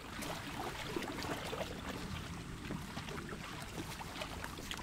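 Faint splashing and trickling of water as elephants drink and wade in a waterhole, with scattered light splashes.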